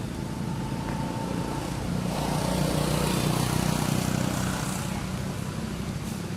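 A motor engine running, growing louder about two seconds in and fading again near the end, as when a vehicle passes by.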